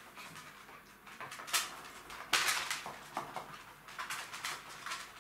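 Jack Russell Terrier puppies playing: their claws click, scrabble and skitter on a laminate floor in a run of quick scratchy taps and scrapes, with a louder scuffle about two seconds in.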